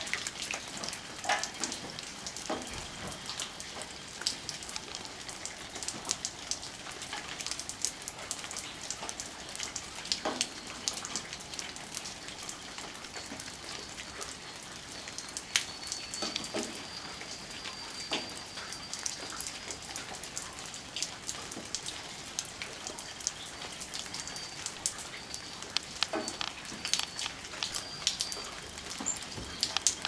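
Raindrops and meltwater dripping through bare branches onto wet snow: a steady soft patter with irregular sharper single drips.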